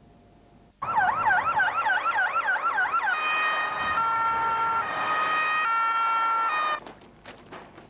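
Police car siren: a fast rising-and-falling yelp for about two seconds, then a two-tone alternating pattern, switching pitch about every second, that cuts off suddenly near the end.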